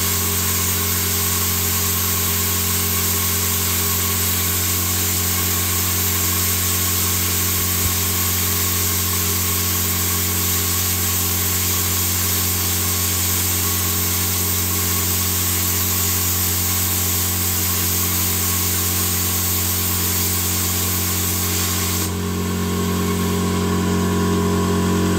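Ideal Praktik 40 air plasma cutter cutting through 10 mm steel flat bar: a steady, loud hiss of the plasma arc and air over a constant hum. The high hiss changes in tone about 22 seconds in.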